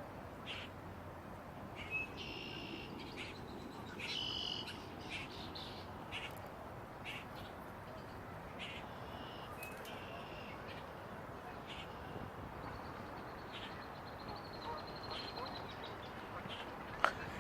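Red-winged blackbirds calling from the marsh: a stream of short chips and whistles with a few buzzy trills, over a steady background hiss. A single sharp click comes near the end.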